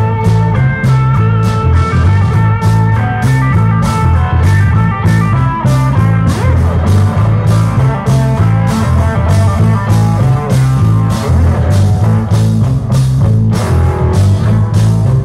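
Live blues band playing an instrumental: electric guitar lead over bass guitar and drum kit, with a steady beat.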